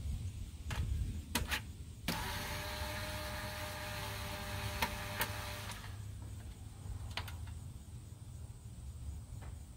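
Cordless drill-driver running steadily for about three and a half seconds, a couple of seconds in, spinning out a bolt on a lawnmower engine. A few sharp clicks come before and after it.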